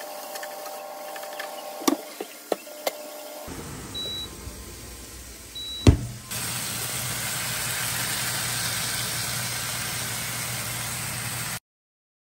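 A spatula taps a few times in a frying pan. A PowerXL air fryer then beeps twice, its lid shuts with a loud knock, and its fan starts up with a steady whir and low hum that cuts off suddenly near the end.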